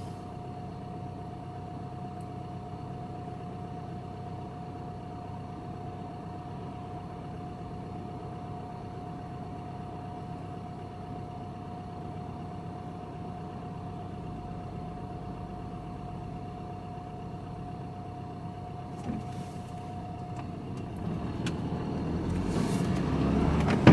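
Engine and road noise inside a vehicle's cab while driving, steady with a thin high note, growing louder over the last few seconds.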